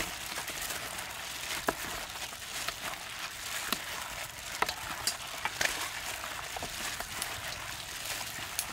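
Plastic-gloved hands squeezing and turning chicken pieces in a thick, wet marinade in a stainless steel bowl: irregular wet squelching with plastic crinkling and many small sticky clicks.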